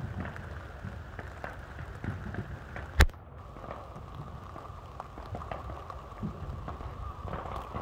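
Fireworks crackling and popping in a dense patter of small reports, with one sharp loud bang about three seconds in.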